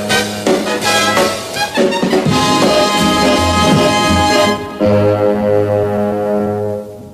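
Brass-led dance-band music, busy and rhythmic, closing about two-thirds of the way through on one long held chord that fades out near the end.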